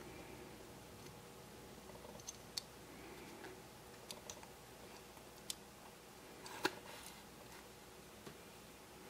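Faint, scattered small clicks of plastic and metal parts being handled and fitted together on a model train's motor bogie, the sharpest click about two-thirds of the way through.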